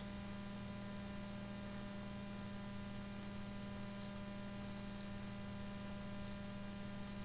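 Steady electrical mains hum, a low buzz with many evenly spaced overtones, over a faint hiss.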